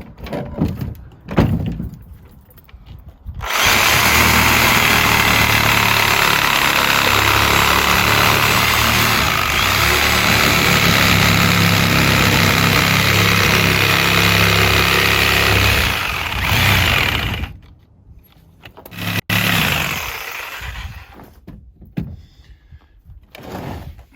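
Reciprocating saw (Sawzall) cutting through the rubber sidewall of an old tire to free it from the bead, running steadily for about fourteen seconds, then a short burst of cutting near the end. A few knocks come before the saw starts.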